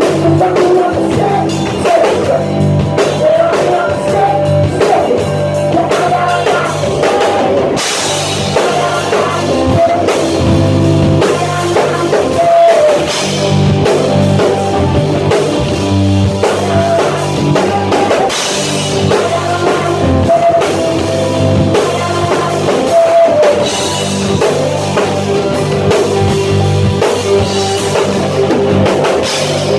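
Rock band playing live and loud, with drum kit and guitar; the cymbals come up brighter about eight seconds in.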